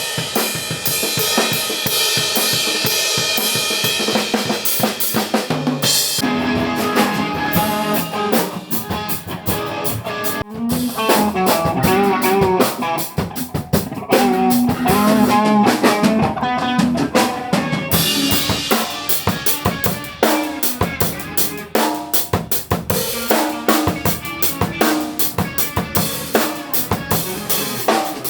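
A band playing a song with a drum kit driving a steady beat of kick, snare and rimshots. Pitched melodic parts come through most strongly in the middle.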